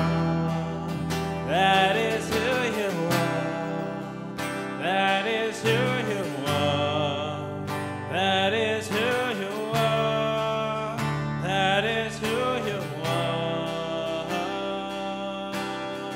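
Worship song played live: a man sings a short repeated line over a strummed acoustic guitar, with an electric bass guitar holding low notes that change every few seconds.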